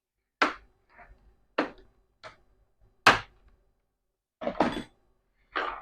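Sharp plastic clicks and knocks, six or seven at uneven intervals with the loudest about three seconds in: the laptop's plastic case being pried apart with an opener, its clips snapping loose.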